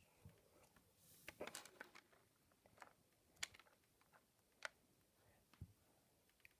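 Faint small clicks and rustles of fingers picking rubber loom bands out of a clear plastic compartment tray: a short flurry about a second and a half in, then single sharper clicks about once a second.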